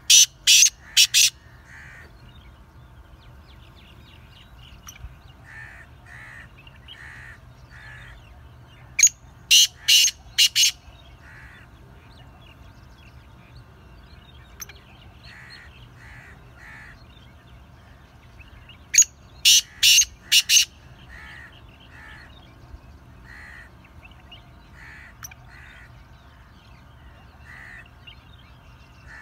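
Male black francolin calling: a loud, harsh phrase of four or five grating notes, given three times about ten seconds apart, with fainter bird calls in between.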